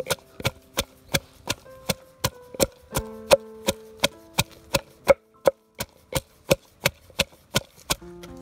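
A knife chopping on a cutting board in an even beat of about three sharp strokes a second. Soft held music notes sound underneath.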